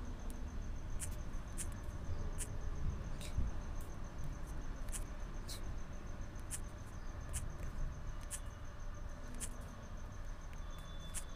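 A cricket trilling steadily in a high, continuous pulsing chirr, with a dozen or so sharp clicks at irregular intervals over it.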